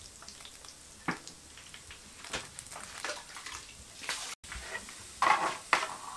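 Chopped garlic sizzling softly in oil in a nonstick frying pan, with a metal ladle clicking against the pan now and then. The stirring and scraping grows louder about five seconds in.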